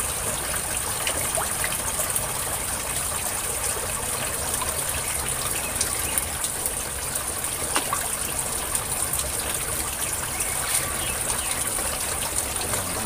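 Steady rush of churning, bubbling water in a tarpaulin fish pond, with many small splashes from red tilapia broodstock crowding at the surface.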